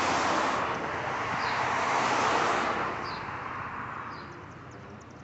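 Road traffic passing: tyre and engine noise of cars swelling near the start and again about two seconds in, then fading away by about four seconds in.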